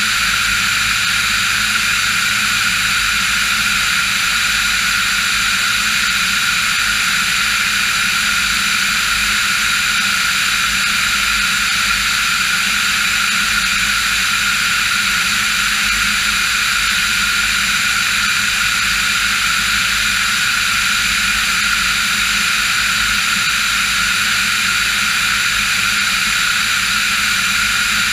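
Diamond DA40 NG's Austro AE300 turbo-diesel engine and propeller in flight, a steady, unchanging drone with no change in power.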